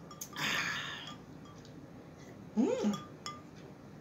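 A person takes a breathy, slurping sip of a drink, then gives a short hummed "mm" of approval that rises and falls in pitch, about three seconds in.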